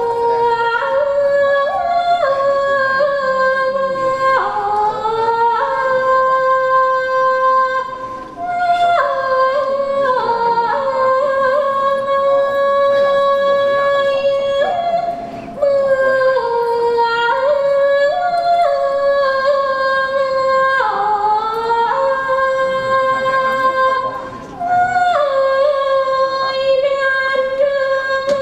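A woman singing a Thai classical vocal line for a Khon dance-drama, in long held notes joined by sliding ornaments. The phrases break off briefly every several seconds.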